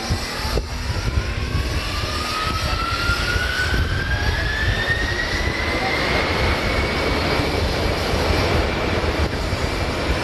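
Boeing 767-300ER jet engines spooling up: a whine rising steadily in pitch over about six seconds and then holding, over a deep, steady rumble.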